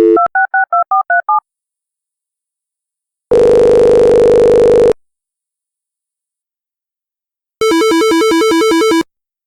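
A telephone call being placed: a dial tone, then a quick run of about seven touch-tone keypad beeps as the number is dialed, then a ringing tone that sounds twice, the second ring warbling.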